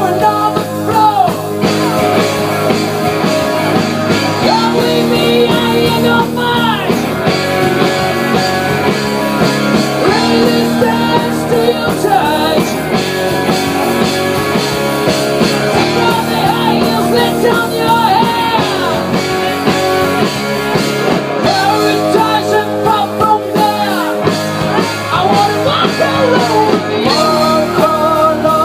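Live rock band playing a song: a singer over electric guitars and a drum kit.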